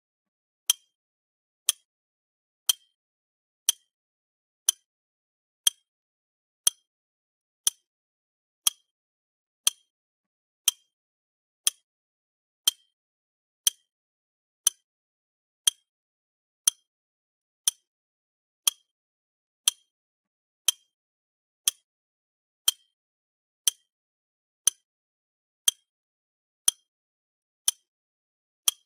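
Countdown tick sound effect: a short, sharp tick exactly once a second with silence between, counting down the final minute to the comet's impact.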